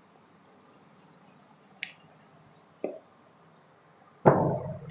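Blackboard duster being wiped across a chalkboard in faint, hissy strokes, with two light taps. A loud thump comes near the end.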